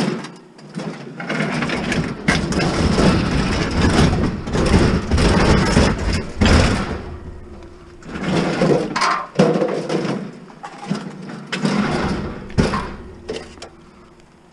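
Old electric stove being tipped and shoved into the back of a car: sheet metal scraping and bumping in long surges, with a few sharp knocks.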